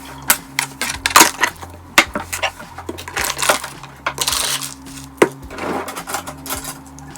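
Kitchen dishes and utensils clinking and clattering as they are handled during clean-up: a run of sharp, irregular clinks and knocks, with a longer rough scraping noise around halfway.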